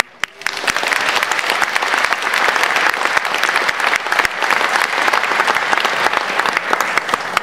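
A large crowd applauding, many hands clapping together, starting about half a second in and going on steadily.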